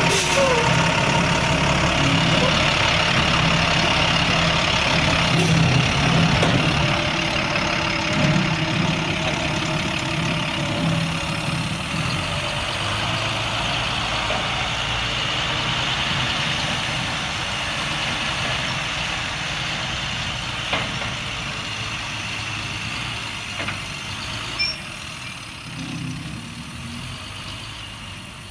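International MaxxForce DT 7.6 L inline-six turbo diesel idling steadily, gradually growing quieter, with a few faint clicks.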